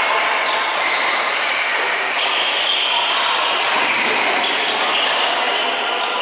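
Badminton play: rackets striking shuttlecocks at irregular intervals over a steady hiss, with brief squeaks of court shoes on the floor.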